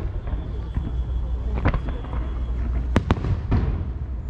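Fireworks shells bursting over a river: a few sharp bangs, the loudest pair about three seconds in with a short echo, over a steady low rumble.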